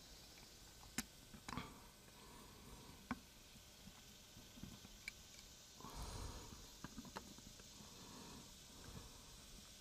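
Near silence with a few scattered faint clicks and taps of small metal parts, and a soft rustle about six seconds in: a small carburetor being handled and worked on with needle-nose pliers.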